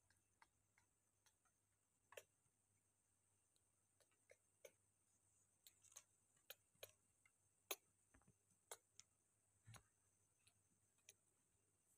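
Near silence: room tone with faint, irregularly spaced small clicks and taps, about a dozen of them.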